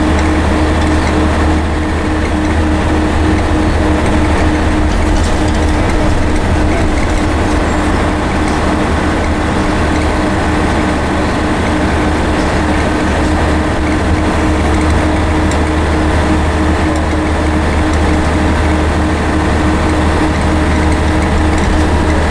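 Interior of a Voith-gearboxed Scania N113CRB single-decker bus cruising: its rear-mounted diesel engine runs steadily under way, a deep drone with a steady hum over it, mixed with road noise.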